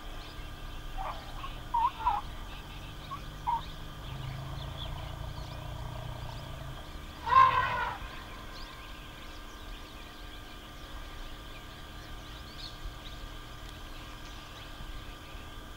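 Wild outdoor animal sounds: a few short bird chirps in the first few seconds, then one loud, brief call with several pitches about seven seconds in, over a steady faint background hum.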